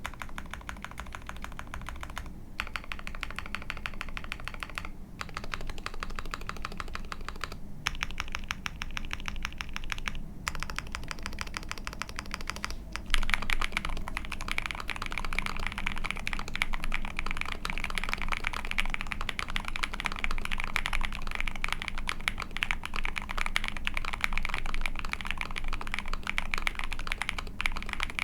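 Typing on a KBDFans Mountain Ergo split mechanical keyboard with lubed Tecsee Ice Candy linear switches in an aluminium plate under PBT keycaps: a rapid, continuous clacking of keystrokes. In the first half the typing breaks off briefly every couple of seconds; from about halfway on it is faster and louder.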